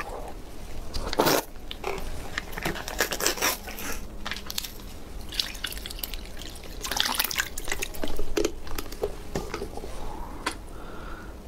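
Thick milk tea sloshing and dripping in a glass bowl as a wooden spoon stirs it, with irregular wet crackles. Louder clusters come about a second in and again around seven to eight seconds in, as a small plastic cup is opened and emptied into the bowl.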